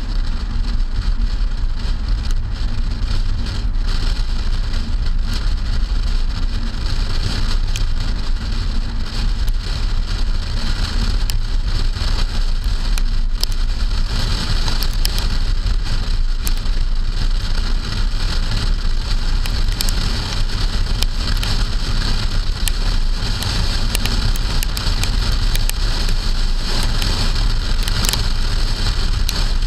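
Wind rushing over a trunk-mounted camera and the road noise of a moving 2008 Hyundai Sonata, a steady loud rumble. Raindrops tick on the camera's housing, more often in the second half.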